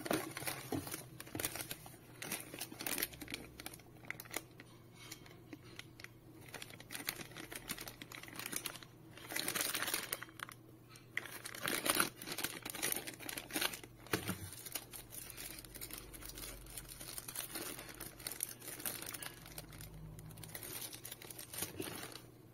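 Plastic packaging bags crinkling and rustling in the hands as they are handled and opened, with cardboard box parts being shifted. The rustling comes in irregular bursts, loudest about nine to twelve seconds in.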